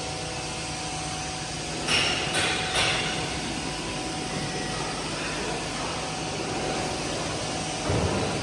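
Hydraulic cylinder test bench's power unit running steadily, a hum with a faint held whine, while a telescopic hydraulic cylinder is held under about 176 bar of test pressure. A few sharp clinks come about two to three seconds in, and a dull knock near the end.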